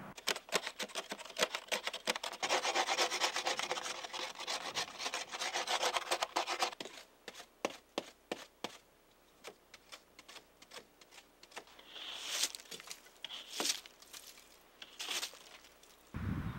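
Ice scraper scraping frost and ice off a car window: rapid, rasping back-and-forth strokes for several seconds, then slower separate strokes, with a few higher, sharper strokes near the end.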